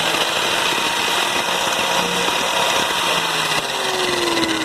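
Corded angle grinder running free with no load, a steady high whir with a thin whine, powered from a battery generator. Near the end a lower tone slowly falls in pitch.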